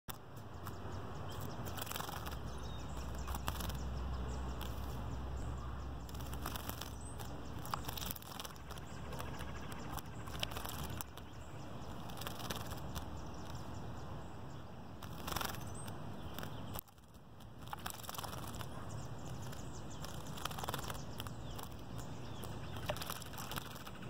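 Carolina wren bathing in a bird bath: irregular quick splashes and wing flutters in the water, over a steady background hiss.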